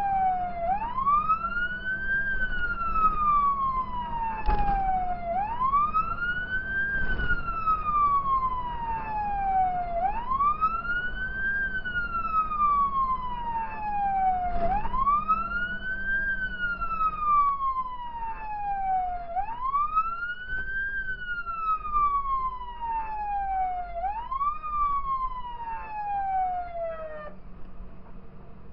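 Fire engine's wailing siren, heard from inside the cab: each cycle rises quickly in pitch, then falls slowly, about every five seconds, over the truck's engine hum. The siren cuts off near the end.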